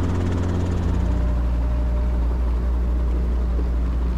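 Small piston-engine helicopter's engine and rotor running with a steady low drone, which shifts slightly in pitch about a second in.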